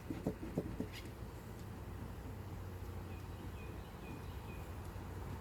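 Honeybees humming steadily around an opened hive, with a few light knocks in the first second and four short high chirps a little past the middle.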